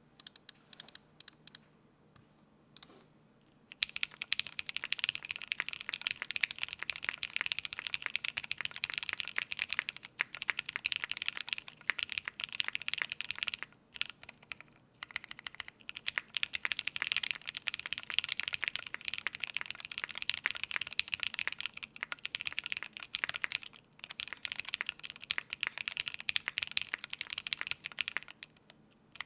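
Typing on a Keycult No. 1/60 aluminium 60% mechanical keyboard with lubed Gateron Ink switches, a gasket-mounted half-polycarbonate plate and GMK keycaps. A few separate keystrokes, then steady fast typing from about four seconds in, with short pauses about halfway and again near the end.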